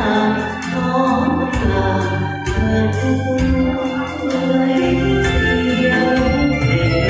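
Instrumental backing music with an electronic organ-like keyboard playing held chords over a steady bass line, with light percussion. It is an instrumental passage of a karaoke-style backing track, with no singing.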